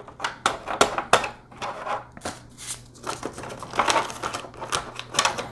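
Clear plastic blister tray crackling and clicking as hands press on it and fit parts back into it: a run of irregular sharp crackles and taps.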